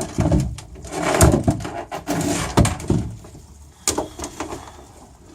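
Knocks, bumps and scraping of gear being handled and shifted about in a small boat cabin, with a sharp click near the end.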